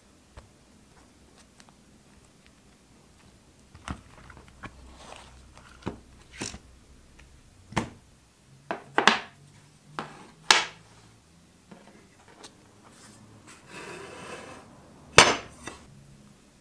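Hard objects handled and set down on a workbench: cast epoxy resin handle scales and their mold, giving about a dozen scattered clicks and knocks, with a short rustle just before the loudest knock near the end.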